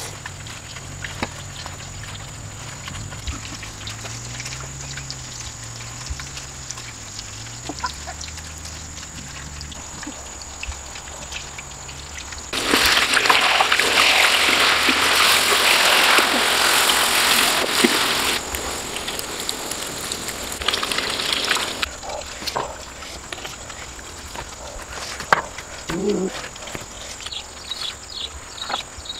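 Beaten egg with chopped green onion frying in hot oil in a wok, a loud sizzle that starts suddenly about halfway through and dies away about nine seconds later. Before and after it, only quiet small clicks and rustles.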